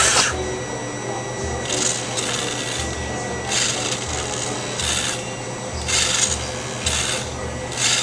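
Small electric gear motors of a radio-controlled Bruder toy bulldozer whirring in short bursts about a second apart, over a steady low hum.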